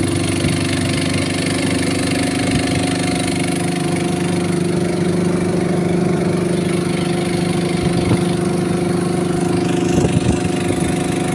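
Small engine of a wooden longboat running steadily at an even speed, with a few brief knocks near the end.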